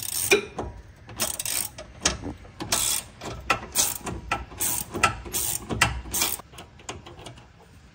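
Ratchet wrench clicking in a series of quick, irregular strokes, backing out the 11 mm bolt at the top of the steering rack.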